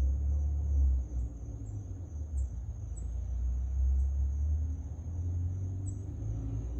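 Low rumbling noise that swells and fades unevenly, with faint, brief high chirps roughly every second over a steady thin high tone.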